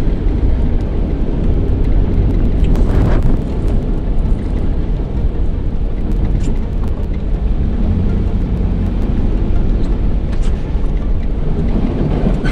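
Steady engine and road rumble heard from inside a moving car, with a few faint clicks.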